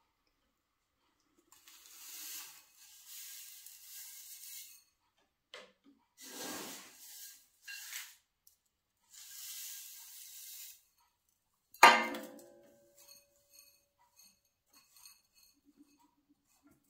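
Granular bonsai substrate poured into a small ceramic bowl, the grains hissing and rattling in several short pours. About twelve seconds in there is a single sharp clink with a short ring, the loudest sound. After it come faint ticks as the grains are pressed and settled by hand.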